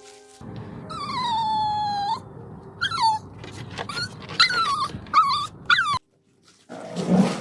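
Dog whining: one long whine falling in pitch, then several shorter whines that rise and fall, over a steady low background noise. Near the end there is a short dull thump.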